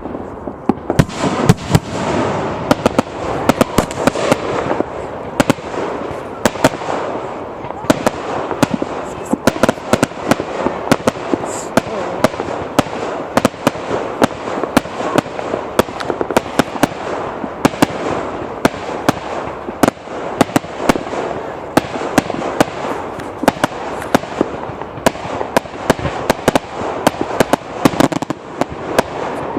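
Fireworks going off in rapid succession: many sharp bangs and pops, several a second, over continuous crackling.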